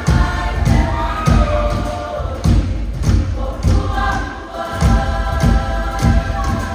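A large group of girls singing together in unison over a steady, heavy beat of about two beats a second, which briefly eases off around four seconds in.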